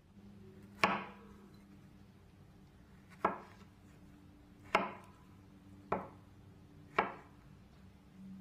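Chef's knife slicing strawberries on a bamboo cutting board: five sharp knocks, unevenly spaced, as the blade cuts through onto the board, over a faint steady low hum.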